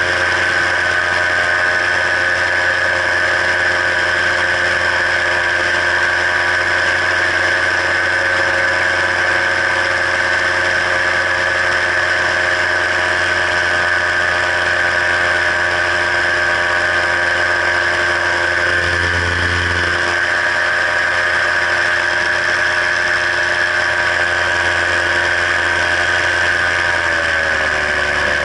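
Paramotor engine and propeller running steadily in flight, a loud, even drone with a strong high whine. Near the end the engine note drops as the revs come down.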